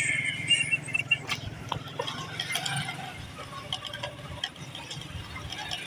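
Footsteps on a dusty path strewn with dry leaves: irregular light clicks and crackles, over a steady low hum.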